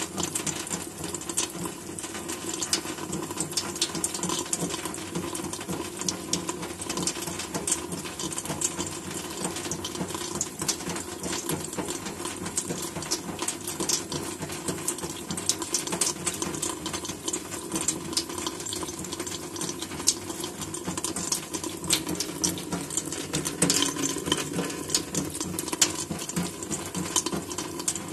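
Cat lapping water straight from a running tap: rapid, irregular wet tongue clicks over the steady trickle of the faucet stream.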